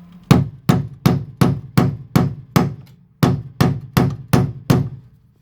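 A hammer striking metal, thirteen evenly spaced blows at about three a second with a brief pause after the eighth. It is driving an old screw, used as a punch, against a school-bus seat bolt whose head has been ground off, to push the bolt through the floor.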